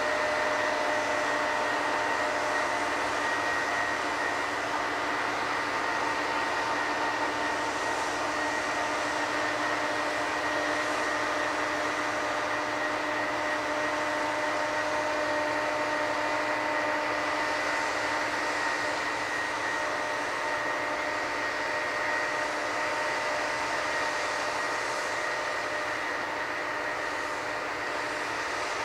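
Steady machinery running at a constant pitch: an even whine holding several fixed tones over a hiss, with no change in speed.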